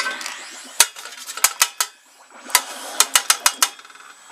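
A metal utensil clinking against a stainless steel pot, about ten sharp clinks, several in quick succession in the second half.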